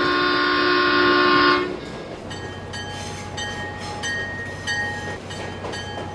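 Locomotive air horn sounding a loud multi-note chord that cuts off about a second and a half in, followed by a low steady hum with a high ringing tone repeating about twice a second.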